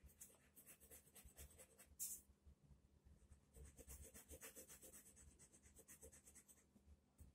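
Yellow coloured pencil shading on paper: faint, quick back-and-forth scratching strokes, about five a second, with one louder stroke about two seconds in and a short pause about three seconds in.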